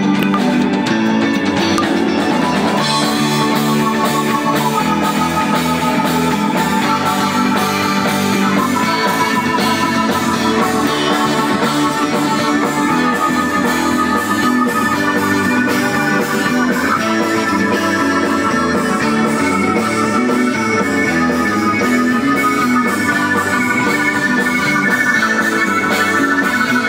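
Live rock band playing: electric guitar and drum kit over a steady beat, with sustained melody notes above.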